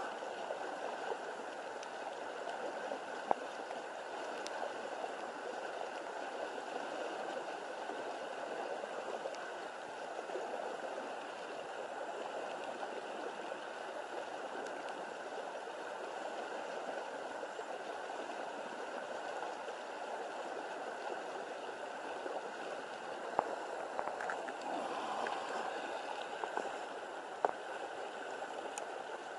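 Steady rush of flowing water, like a small stream running near the bank, with a few faint clicks.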